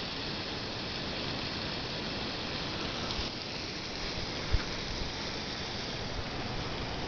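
Steady outdoor background hiss with a low, unsteady rumble, and one short soft thump about four and a half seconds in.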